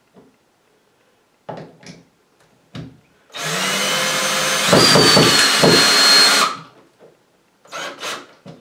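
Cordless drill driving a screw through a metal shelf bracket into a wall anchor. It runs for about three seconds, getting louder about halfway through the run, then stops, leaving the screw not fully tightened.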